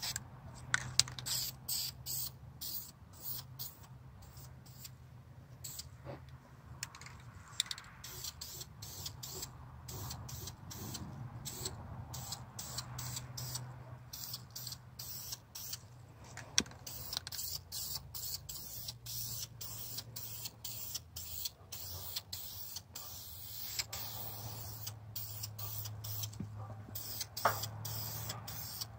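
Aerosol can of rust-barrier primer spraying onto a bare steel truck frame, hissing on and off, over a low steady hum with a few sharp clicks.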